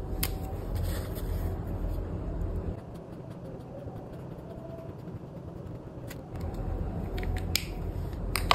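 Felt-tip marker uncapped and rubbed over a paper card to colour in boxes, with a few sharp clicks of the pen and card being handled, over a low background rumble that eases in the middle and comes back near the end.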